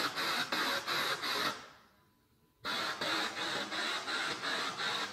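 SB7 spirit box sweeping rapidly through radio stations: a rhythmic hiss of static chopping about four times a second. The static fades out about a second and a half in, then cuts back in abruptly about a second later.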